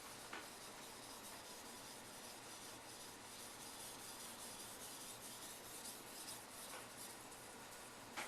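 Steel edge of an AEB-L Richmond Artifex knife scraping back and forth across a wet waterstone with a little mud raised on its surface. The scraping is soft and steady.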